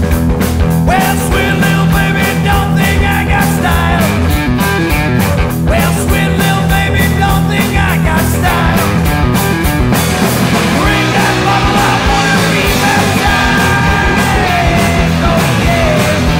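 Loud rock music played by a trio of electric guitar, bass guitar and drums, with a lead line that glides up and down in pitch in phrases a few seconds long.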